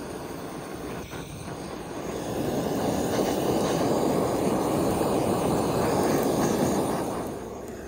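Handheld gas-cartridge blowtorch flame hissing steadily as it sears the fat on a hanging whole sheep carcass. It grows louder about two seconds in and eases off near the end.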